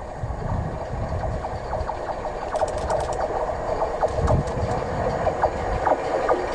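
LMS Royal Scot Class no. 46115 Scots Guardsman, a three-cylinder 4-6-0 steam locomotive, approaching with its train under steam. The sound of the engine and train grows louder as it nears, with sharp clicks coming in from about two and a half seconds in.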